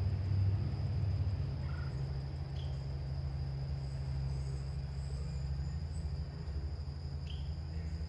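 Crickets trilling steadily, with a few short bird chirps, over a low rumble of distant road traffic.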